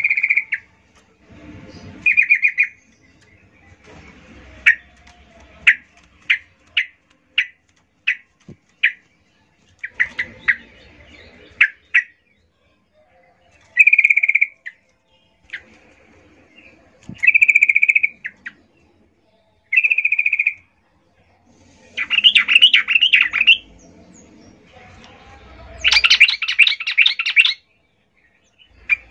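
Female yellow-vented bulbul (trucukan) calling: several short buzzy calls, a run of sharp single chips at about two a second, and near the end two bursts of louder rattling chatter.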